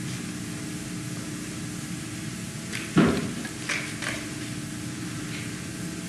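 Steady hiss and hum of an old recording, with one loud thud about three seconds in, followed by two lighter knocks.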